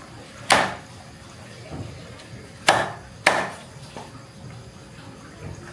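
Cleaver chopping a rooster on a chopping block: three sharp chops, one about half a second in and two close together near the middle.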